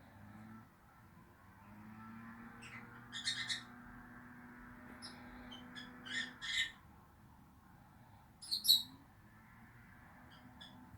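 Lovebirds chirping and squawking in short, shrill calls that come in three clusters. The loudest cluster is near the end, with a few faint chirps in between.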